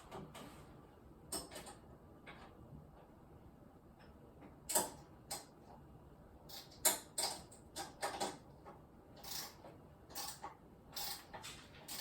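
Irregular metallic clicks and knocks, a dozen or so, of tools and parts being handled during work on a mobility lift, the loudest about 5 and 7 seconds in.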